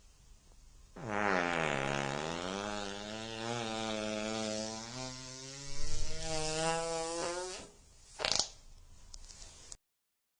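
A long, drawn-out fart lasting about six and a half seconds, pitched, dropping in pitch at the start and then holding steady, loudest about two-thirds of the way through. It is followed by one short, sharp blast about a second later.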